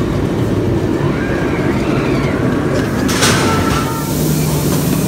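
Riding a miniature railway train: a steady rumble of the wheels running on the track, with a short hiss about three seconds in.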